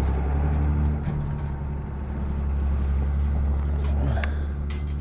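Steady low hum of a running engine or motorised machinery, with an even drone that holds without change.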